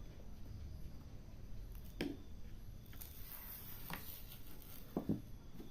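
A few light clicks and taps from hands working on a laptop's plastic bottom case while it is being opened, with a close double click near the end as the loudest.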